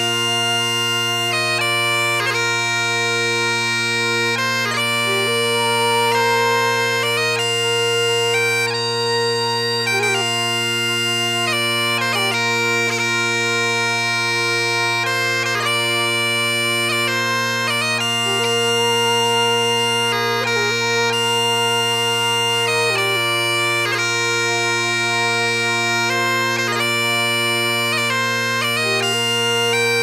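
Great Highland bagpipes playing a tune of quickly changing notes over steady, unbroken drones.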